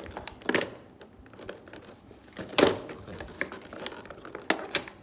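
Hard plastic toy water-bead blaster being handled in its clear plastic packaging tray: a handful of sharp clicks and knocks with plastic crinkling, the loudest knock about two and a half seconds in.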